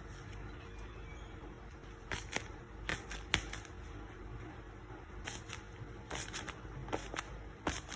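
Paper being handled during packing: scattered crisp rustles and sharp little taps and clicks, starting about two seconds in over a faint steady background.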